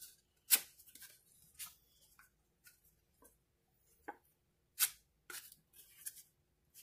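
Small plastic putty knife scraping and slapping drywall joint compound: a run of short, separate strokes as mud is scooped from the bucket and spread onto a paper-faced drywall patch.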